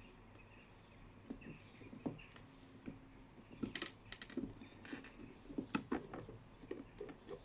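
Irregular light clicks and taps of a clear acrylic enclosure being gripped and handled, starting about a second in. A few sharper clicks come in the middle.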